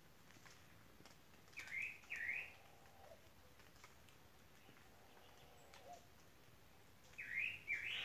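A bird gives two quick, bright chirping notes, about a second and a half in and again near the end. Between them comes the faint, low cooing of a picazuro pigeon (pomba-carijó).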